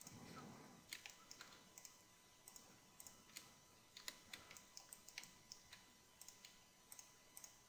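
Faint computer mouse and keyboard clicks, short single clicks scattered at irregular intervals, over a low background hiss.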